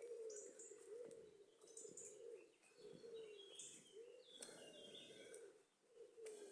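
Faint woodland dawn chorus: several songbirds chirping and singing short high phrases, over a lower repeating sound.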